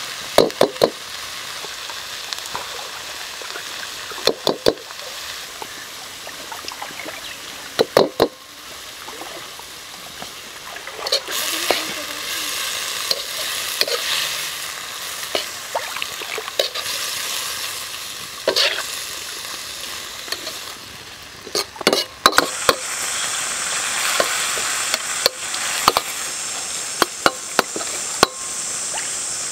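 Chicken liver and hearts sizzling in a wok while a metal ladle stirs and scrapes them, with sharp clanks of the ladle against the wok every few seconds. The sizzle grows louder about a third of the way in and again near the end.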